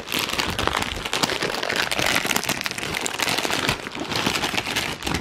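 Plastic packaging crinkling and rustling continuously as hands unwrap a small item from a plastic mailer bag and its clear plastic wrap, a dense stream of small crackles.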